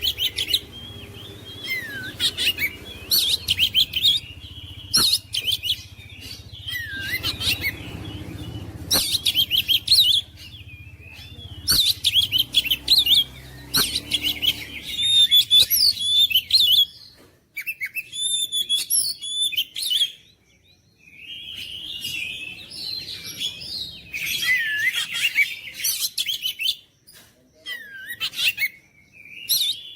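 Oriental magpie-robin (kacer) singing hard in loud bursts of rapid chattering trills and whistled notes, with short pauses between phrases: the full, insistent song that keepers play to provoke a silent kacer into singing.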